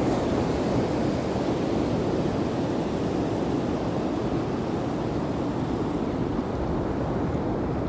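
Steady wind rumbling on the microphone over the continuous wash of surf.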